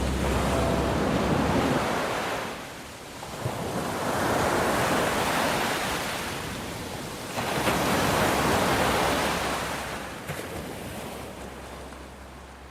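Ocean surf: waves rolling in and washing back in about three slow swells, fading out near the end.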